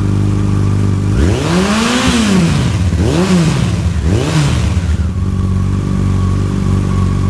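2014 Yamaha FJR1300's inline-four idling through a Delkevic 18-inch oval exhaust with its baffles in, then revved three times: one longer rev followed by two short blips, each settling back to a steady idle. The sound is throaty without getting loud at higher RPM.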